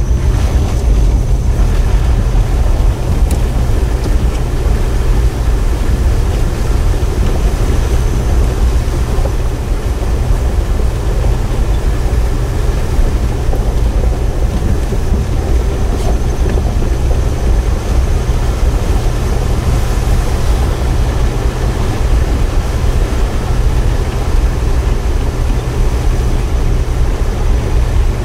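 Jeep engine running steadily while the vehicle wades through floodwater, heard from inside the cab as a constant deep rumble.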